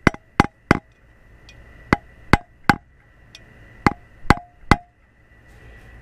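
A wooden 2x4 board striking a socket held on a replacement plastic prop hub, tapping the hub down into an outboard propeller. Nine sharp knocks in three quick groups of three, each with a short ring.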